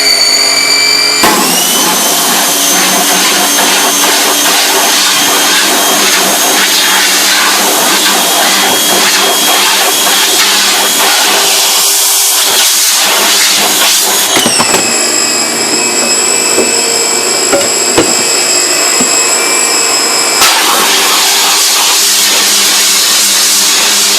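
Pressure washer running and spraying, blasting chemically loosened emulsion out of a screen-printing screen. A loud, steady motor whine that steps up in pitch partway through and drops back about six seconds later.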